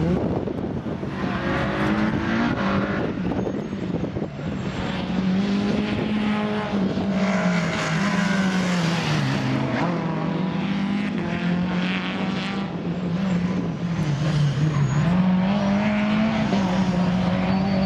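Renault Clio rally car engine revving hard as the car is driven through the course. Its pitch rises and falls with throttle and gear changes, dipping about nine and about fifteen seconds in.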